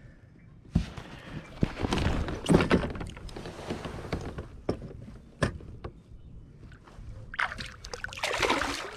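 Knocks, thumps and rustling of a bass being handled aboard a kayak, loudest about two and a half seconds in, followed near the end by water splashing and sloshing as a largemouth bass is released over the side.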